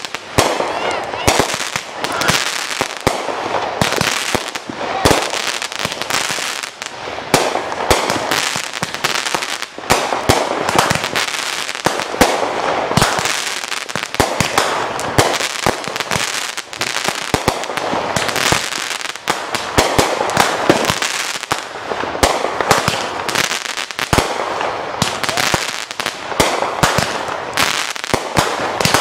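Consumer aerial fireworks bursting overhead in quick succession: a continuous run of sharp bangs and dense crackling.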